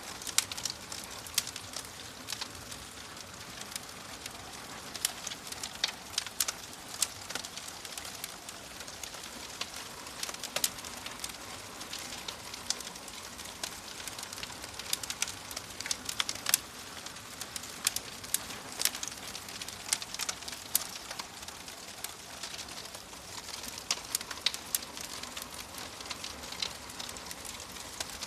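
Fire crackling: irregular sharp crackles and snaps over a steady soft hiss.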